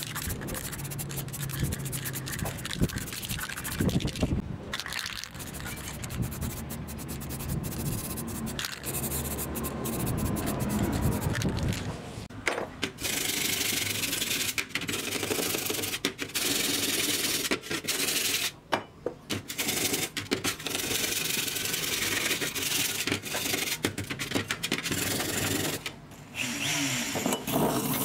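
Hand file rasping back and forth on a rusty steel bracket, filing the rust off in repeated strokes, from about halfway on. The first half holds quieter, less distinct sounds.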